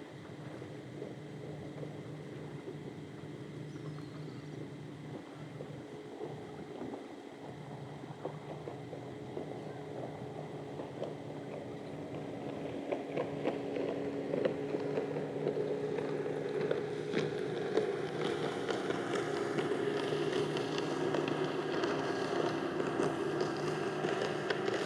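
A steady engine hum, like a boat's motor passing offshore, growing louder over the second half, with many small crackles mixed in.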